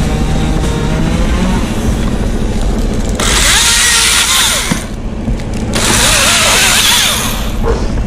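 Chainsaw running at low throttle for about three seconds, then opened up to full throttle twice as it cuts through a loblolly pine limb, easing off briefly about five seconds in.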